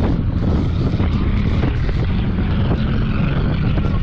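Engines of cars racing around a dirt track, heard at a distance, with wind buffeting the microphone.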